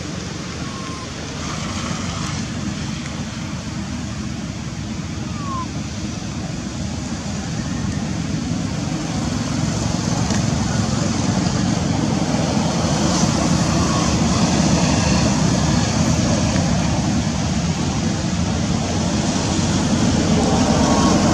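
Steady low rumble and hiss of background noise, growing a little louder in the second half, with a few faint short chirps.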